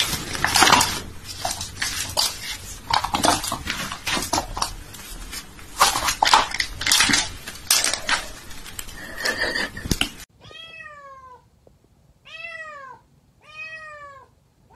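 Irregular scuffing and clattering noises for about ten seconds. Then a cat meows three times, about a second apart, each meow rising and then falling in pitch.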